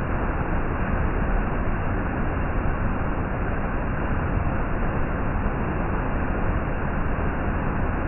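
Waterfall in spate pouring over rock and stone steps into a flooded pool: a steady, low rushing of water with no breaks.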